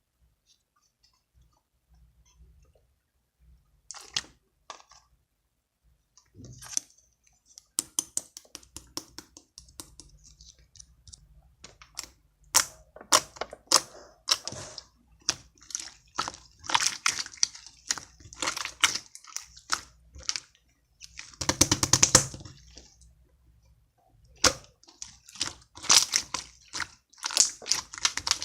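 Clear slime being squished and worked by hand, giving sticky wet clicks and short crackling bursts. It is sparse for the first few seconds, then comes in quick runs of clicks, with the loudest crackle about two thirds of the way through.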